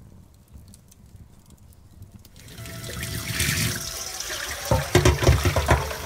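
Tap water running into a stainless steel bowl in a sink, starting about two and a half seconds in, with splashing and knocks as hands wash in the bowl near the end.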